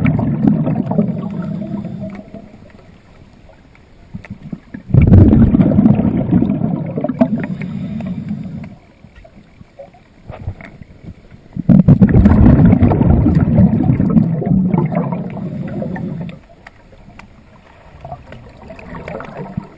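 A scuba diver's exhaled bubbles rushing and gurgling out of the regulator, recorded underwater. There are three long bubbling bursts, each about four seconds: the first is already under way at the start, and the others begin about five and twelve seconds in. Quieter stretches lie between them, where the diver breathes in.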